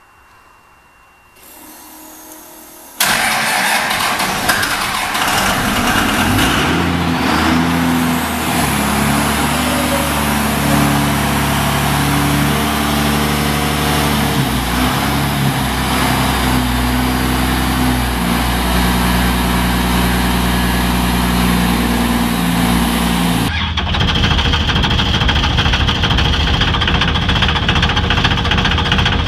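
Cummins diesel engine in a 1970s Ford pickup fires up suddenly about three seconds in and runs, its pitch stepping up and down as it is revved. Near the end another Cummins diesel, in a Dodge pickup, idles with a rapid diesel clatter.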